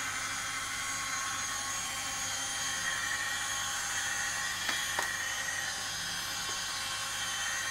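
YSL Rouge Sur Mesure custom lip colour machine whirring steadily as its small motors run a cartridge calibration, pushing lipstick up through the dispenser at the top. A couple of faint clicks come about five seconds in.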